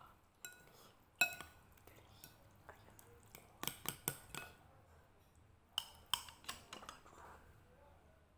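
A metal spoon or fork clinking against bowls while noodles are picked out: one sharp ringing clink about a second in, then quicker runs of clinks around the middle and again a little later.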